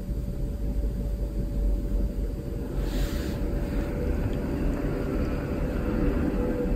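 Domestic cat purring close by while being petted, a steady low rumble. A short rustle comes about three seconds in.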